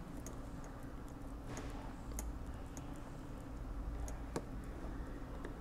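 Scattered light metallic clicks and ticks from the gears and shaft of a 1917 Monroe Model F mechanical calculator as its mechanism is handled.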